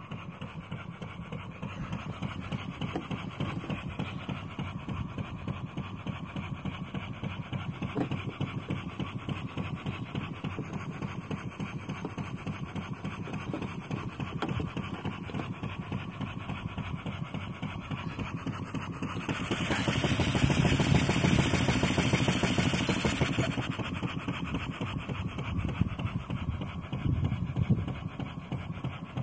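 Model vertical single-cylinder steam engine running on steam, its exhaust beating so fast that it blurs into a steady rasping chuff. About twenty seconds in, it grows louder and hissier for roughly four seconds, then settles back.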